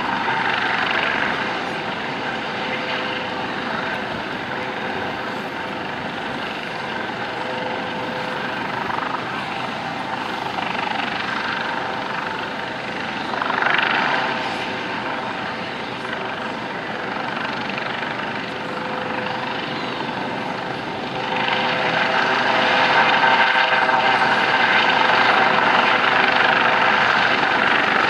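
US Coast Guard MH-65 Dolphin helicopter flying low, its twin-turbine engines and rotor giving a steady, dense running noise. It swells briefly about halfway through, then grows louder about three quarters of the way in and stays loud.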